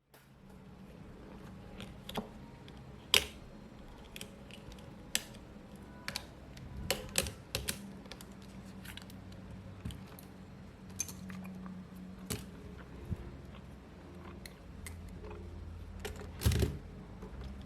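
Small metal repair tools clicking and tapping against a smartphone's frame and parts while it is taken apart, irregular light clicks over a low steady hum.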